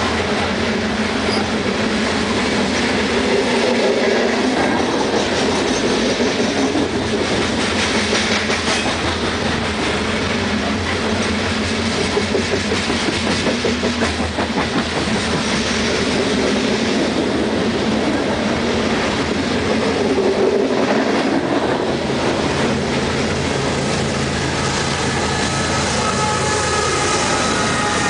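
Loaded coal hopper cars rolling past in a steady rumble, with the clickety-clack of wheels over rail joints. In the last few seconds a distributed-power locomotive draws up and faint steady tones join the rolling noise.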